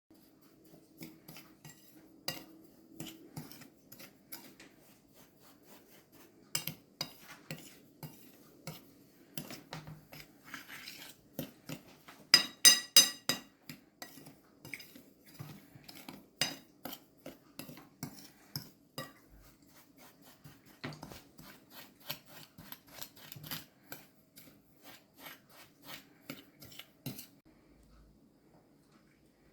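Kitchen utensils clinking and tapping against dishes, irregularly, with some scraping. A few loud, ringing clinks come together about twelve seconds in.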